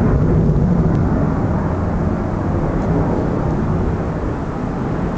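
Regional jet's rear-mounted turbofan engines heard from a distance as it rolls down the runway on its takeoff run: a steady low rumble that eases slightly.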